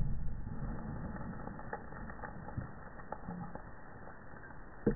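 Low rumble of a blast fading out over the first second, then faint scattered ticks of ash and grit falling back onto a charred fire-pit pile, with one sharper click near the end.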